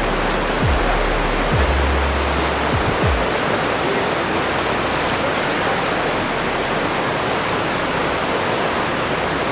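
Steady rush of a fast-flowing river over rapids, with a few deep, falling thumps in the first three seconds.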